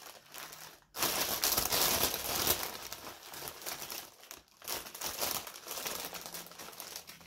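Clear plastic packaging crinkling as hands rummage through a bag of small zip-lock bags of diamond painting drills, starting about a second in and going on with short pauses.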